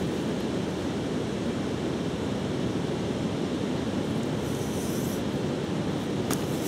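River water rushing steadily, with a short high hiss about four and a half seconds in and a sharp click near the end.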